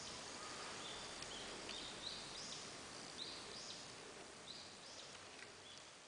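Forest ambience: a steady hiss with the short, high chirps of small birds repeating throughout, slowly fading toward the end.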